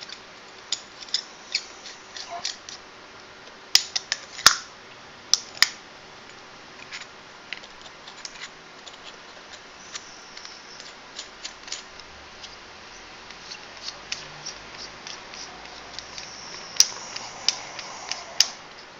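Stainless steel mechanical mod tubes and caps being handled and screwed together: scattered small metal clicks and taps, the loudest about four seconds in and again near the end.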